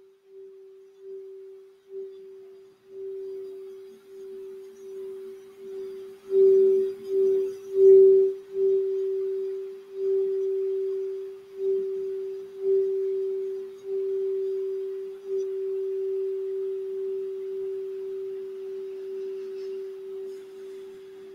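Crystal Alchemy crystal singing bowl tuned for the throat chakra, rubbed around its rim with a wand so that it sings one steady, pulsing tone. A third of the way in it swells to its loudest, with a few brief knocks, then holds and slowly fades.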